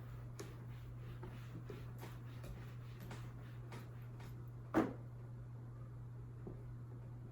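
Faint scattered clicks and light taps, with one louder knock about five seconds in, over a steady low hum.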